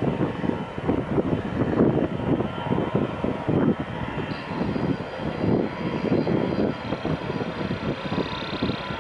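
Jet airliner's engines running as it rolls along the runway, with a thin high whine coming in about four seconds in. Gusty wind buffets the microphone, giving an uneven rumble throughout.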